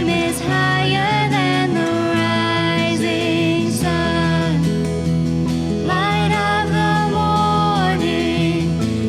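Praise band playing a worship song: singing with held, gliding notes over acoustic guitar.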